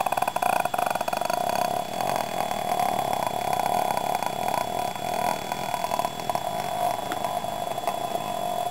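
The Grudge ghost's croaking death rattle, played as a sound effect: one long, rough rattling croak in the throat, most strongly rattling in the first second or so and then steadier.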